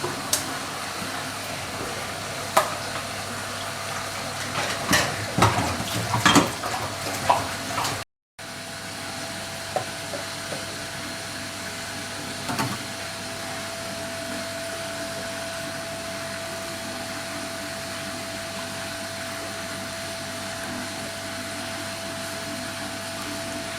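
Cooking at a stove: a utensil clinks and knocks against a pan over a steady hiss. After an abrupt cut about eight seconds in, only the steady hiss remains, with a faint steady whine from about halfway on.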